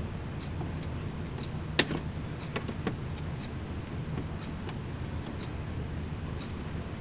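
Scattered light metallic clicks and ticks from hand tools working nails out of a wicker basket's hinge, with one sharp click about two seconds in, over a steady low workshop hum.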